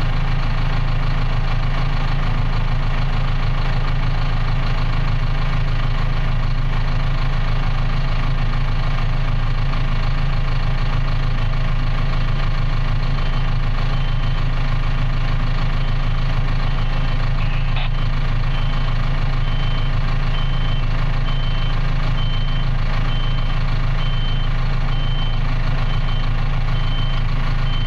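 Cat D6K2 bulldozer's diesel engine idling steadily, heard from inside the cab. From about halfway through, a short high electronic beep repeats at an even pace over the engine, and there is a single click a few seconds after the beeping starts.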